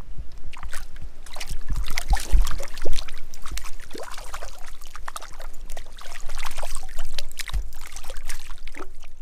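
Water splashing and sloshing irregularly as a hooked brook trout thrashes at the surface, loudest about two to three seconds in.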